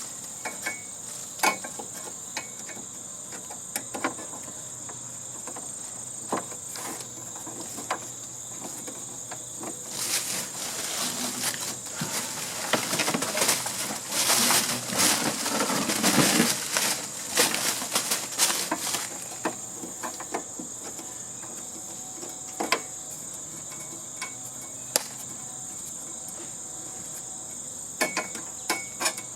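A steady high-pitched insect drone, with scattered sharp clicks and knocks of hand-tool work on sheet-metal HVAC units. From about a third of the way in to about two-thirds, a louder stretch of rattling and scraping covers the drone.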